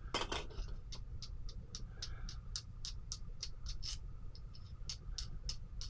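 Dspiae handheld mini vise being opened by hand, its adjusting mechanism giving a steady run of small sharp clicks, about three a second, over a low hum.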